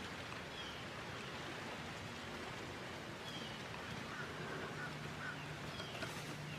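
Quiet outdoor ambience with a few faint, short bird calls. A low steady hum comes in about two-thirds of the way through.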